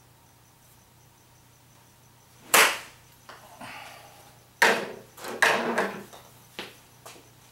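Golf club striking a ball off a hitting mat with one sharp crack about two and a half seconds in. About two seconds later there is another sharp knock and a short run of clattering knocks.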